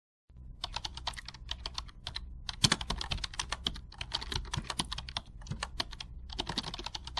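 Rapid, irregular keyboard typing clicks, a typing sound effect laid under on-screen text that appears letter by letter, over a steady low hum. The clicks start about a quarter second in, after a brief silence.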